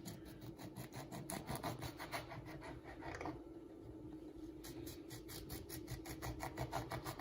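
Kitchen knife cutting food into thin slices: quick, even strokes, about five a second, with a short break a little past the middle.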